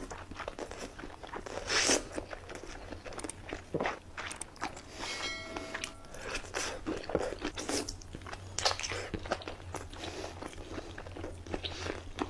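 Bites and chewing of seafood boil, with many irregular crunches. A brief pitched tone sounds about five seconds in, over a faint steady low hum.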